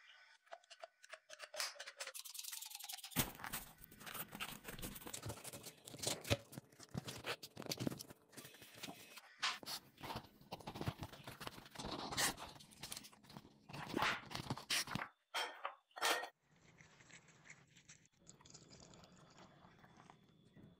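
Rustling and scraping handling sounds from gloved hands working a pile of powder on plastic sheeting, with many scattered clicks and taps; it starts about three seconds in and grows fainter over the last few seconds.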